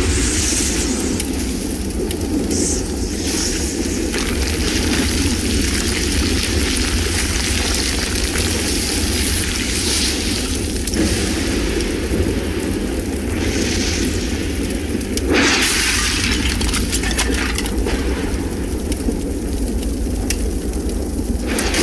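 Sound effects of a volcanic eruption in an animated film: a deep steady rumble under continuous crackling of burning fires and falling debris, with a louder burst about fifteen seconds in.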